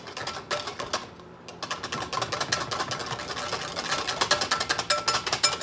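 Wire whisk beating rapidly against a glass mixing bowl: a fast run of clicks and scrapes that pauses briefly, then comes back faster and louder about a second and a half in.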